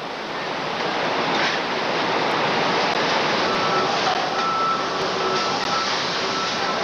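Shovel-factory machinery running: a steady, loud din of heavy plant noise. From about halfway through, a faint high beep-like tone comes and goes several times over it.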